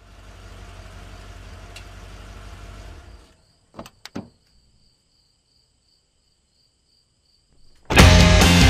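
A low steady rumble that cuts off after about three seconds, two short knocks around four seconds in, then quiet with faint high steady tones, until loud rock music starts abruptly near the end.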